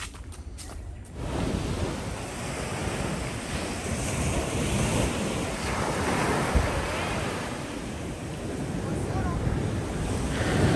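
Ocean surf breaking on a sandy beach, the waves washing up and drawing back. It starts about a second in and grows loudest near the end.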